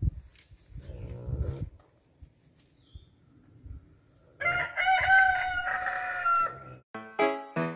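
A single long, high-pitched farm-animal call lasting about two seconds, held fairly steady and dipping slightly at the end, after a brief rustle about a second in.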